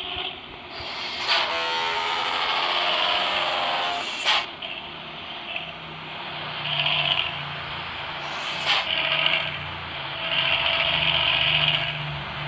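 Bus engine with a growling ('ngorok') exhaust running. Its pitch falls over a few seconds starting about a second in, and a low pulsing exhaust drone sets in about halfway. Three short, sharp bursts come along the way.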